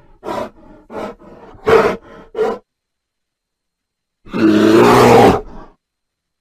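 Grizzly bear sound effect: a quick run of short grunts over the first two and a half seconds, then after a pause one long, loud roar lasting about a second and a half.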